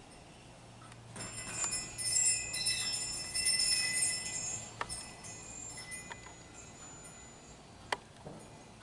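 Small bells jingling and ringing for a few seconds, then fading, followed by a few sharp clicks.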